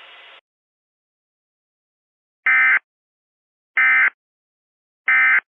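Emergency Alert System end-of-message signal: three short, identical buzzy digital data bursts about 1.3 seconds apart. A faint hiss under the closing announcement cuts off just before them.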